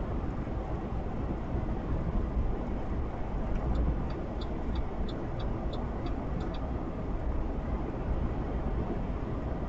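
Steady low vehicle rumble. In the middle comes a run of about ten short, high chirps, about three a second.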